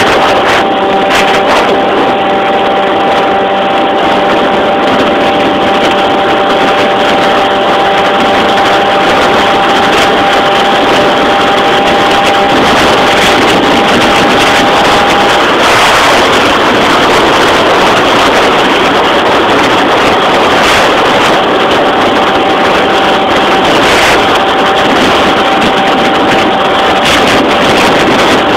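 Yamaha Jog RR scooter's two-stroke engine, fitted with a Hebo Manston cylinder kit, running loud at steady high revs. The note holds for about the first half, wavers off pitch around the middle, then settles back on the same note near the end.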